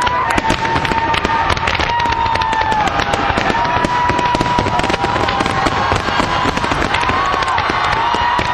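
Fireworks display: a dense, rapid crackle of many small pops and bangs, with a continuous whistling tone over it that wavers and bends a little in pitch.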